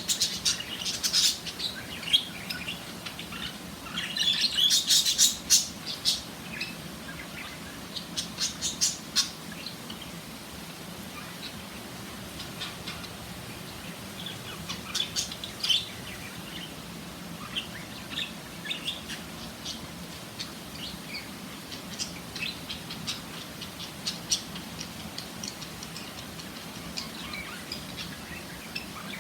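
Budgerigars chirping and chattering in quick, scratchy bursts, busiest in the first ten seconds and more scattered after.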